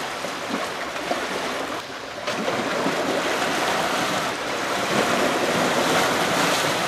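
Choppy river water splashing and rushing against shoreline rocks, a steady wash that dips briefly and then swells louder about two seconds in.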